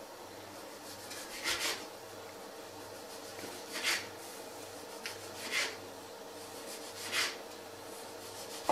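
Wooden rolling pin rubbing over dough on a floured wooden tabletop: four short strokes, about a second and a half to two seconds apart, over a faint steady hum.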